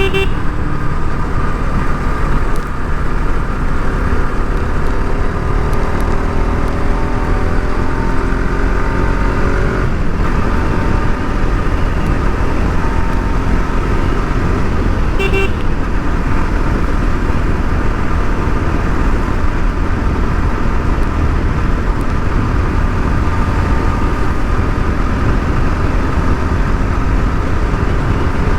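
Bajaj Pulsar RS 200's single-cylinder engine running under way with heavy wind rumble on the mic, its pitch slowly rising and falling with the throttle. A vehicle horn toots briefly twice, once at the start and once about halfway through.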